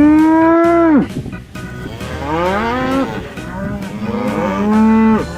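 Cow mooing three times, each moo rising in pitch and then dropping off, over light background music.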